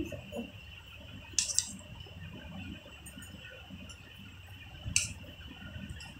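A steel serving spoon clinking twice against stainless steel plates as chicken curry and rice are served, about a second and a half in and again near five seconds, with soft scraping and handling between.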